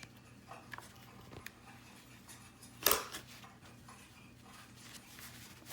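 Chainsaw bar nose sprocket clicking as the chain is turned slowly by hand: a few faint irregular ticks and one sharper click about three seconds in. The clicks are a sign that the new sprocket is not turning smoothly.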